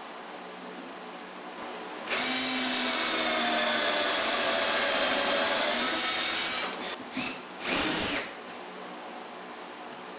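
Cordless drill boring pilot holes into a pine half-lap joint. It starts about two seconds in, runs steadily for about four and a half seconds, then gives three short bursts.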